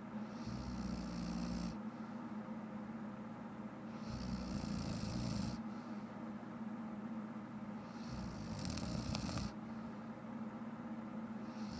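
A woman snoring loudly in her sleep: three snores about four seconds apart, each lasting about a second and a half.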